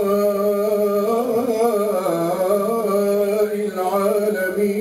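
Male Qur'an reciter's voice holding one long, ornamented vowel in the middle of a verse. The pitch winds up and down in melodic turns, in the drawn-out style of tajwid recitation.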